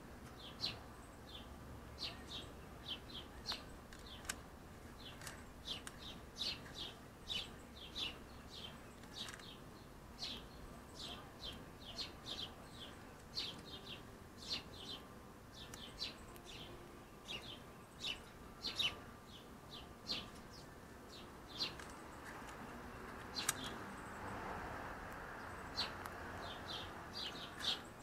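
Small birds chirping: a run of short, high chirps, about one or two a second, over faint outdoor background. Near the end the chirps pause while a soft rushing noise swells and fades.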